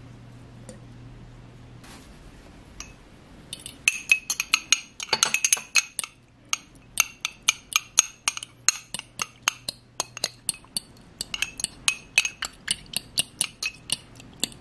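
A metal utensil whisking dressing in a small ceramic ramekin, clinking rapidly against the dish a few times a second. The clinking starts about four seconds in and eases briefly partway through before picking up again.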